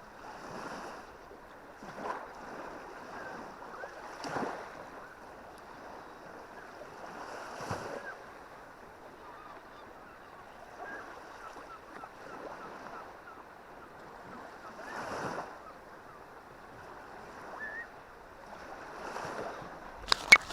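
Small Baltic Sea waves washing ashore, a louder wash every few seconds over a steady surf hiss. A few sharp knocks near the end.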